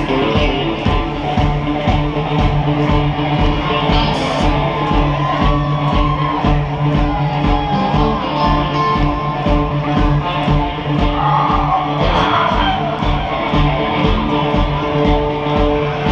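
A rock band playing live through a concert PA: electric guitar and sustained notes over a steady drum beat.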